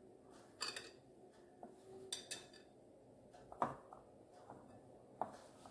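A soft dough kneaded by hand in a glass bowl, giving about five short, irregular knocks and clinks on the glass, the loudest a little past the middle.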